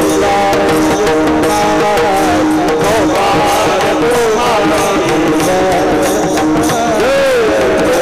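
Varkari devotional singing: a male voice bending and gliding on long melodic notes over steady held accompaniment notes, with pakhawaj percussion keeping a regular beat.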